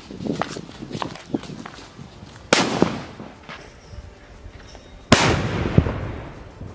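Saddam-brand sutli bomb (a jute-string-wrapped firecracker) exploding inside a hole in cement ground: a sudden sharp bang about five seconds in, dying away over about a second. A shorter sharp burst comes about two and a half seconds in, and a few light clicks come before it.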